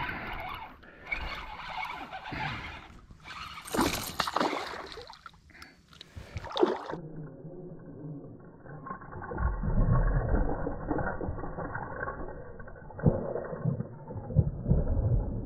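Fishing reel being cranked as a topwater lure is retrieved across calm water, then a largemouth bass strikes the lure with splashing near the end.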